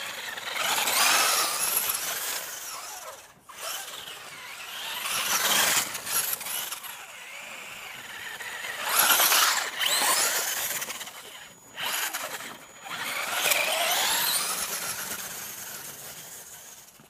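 RC buggy's motor whining in repeated surges as it speeds up and slows down, the pitch rising and falling about four times and fading near the end.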